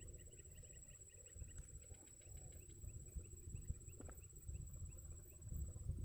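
A small bird repeating short high chirps, about four or five a second, in a brief run at the start and again about four seconds in, over a low rumble of wind on the microphone and a steady thin high insect whine.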